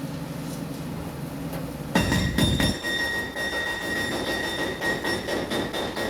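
Demolition machine's engine running steadily, then about two seconds in a loud crash as part of the building comes down, followed by clattering rubble and a high metallic squeal.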